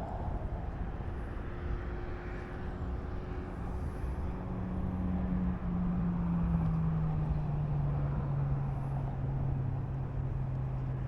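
Steady rumble of traffic, with an engine's hum coming in about four seconds in and slowly dropping in pitch as it gets a little louder.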